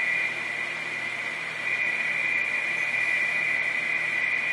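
Radio teletype (RTTY) signal from an ICOM IC-7410 transceiver's speaker on the 10 metre band: a frequency-shift-keyed data tone, two closely spaced tones near 2 kHz warbling steadily over band hiss, the sound of a station calling CQ in RTTY that the radio is decoding.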